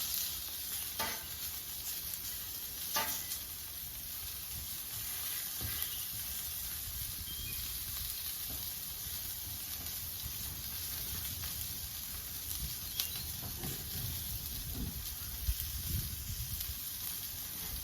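Breakfast food sizzling on a Blackstone flat-top griddle, a steady frying hiss as it cooks on the griddle's remaining heat with the burners off. A few short sharp clicks, about one and three seconds in and again near thirteen seconds.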